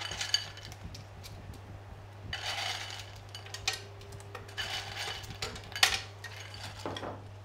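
Clams in their shells being dropped into a stainless-steel roasting tray of fish and tomatoes, clinking and clattering against the metal and one another, with the loudest knock near the end. A low steady hum runs underneath.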